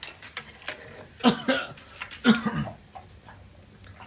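A dog barks twice, two short loud barks about a second apart, over the faint crackle of a wood fire.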